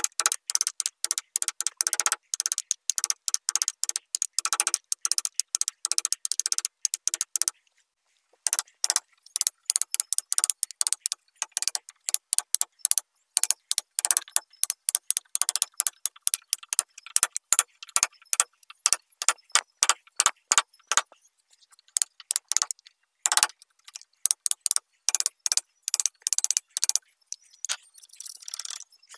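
Metal tool picking and prying splintered wood out of a crack in a wooden tabletop: rapid dry clicks and crackles, with a short pause about eight seconds in and sparser clicks in the last third.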